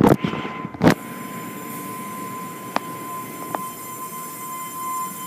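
Automatic car wash heard from inside the car: two loud bursts of water spray hit the windshield in the first second. After that comes a steady hiss of the wash machinery with a constant whine, and two sharp clicks a little past the middle.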